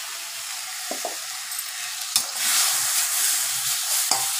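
Onions and freshly added ground masala sizzling in hot oil in a steel kadhai while a metal spatula stirs them, scraping and knocking sharply against the pan a few times. The sizzle grows louder about halfway through.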